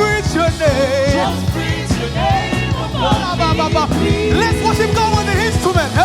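Gospel praise-and-worship music: a singer's wavering, sliding vocal line over a band with steady drum hits and bass.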